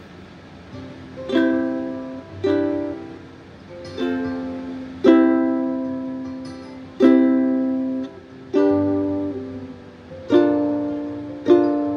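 Flight concert ukulele of amara wood strummed slowly: eight chords starting about a second in, each struck sharply and left to ring and fade before the next.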